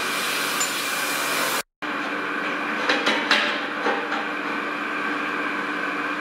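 Steady hum and hiss of winery cellar machinery running. The sound cuts out for a moment after about a second and a half, and a few clanks follow about a second later.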